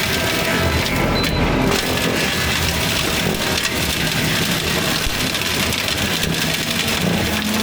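Fecon forestry mulcher head grinding and shredding brush and wood, a continuous crushing and splintering noise, over the carrier machine's engine running under load.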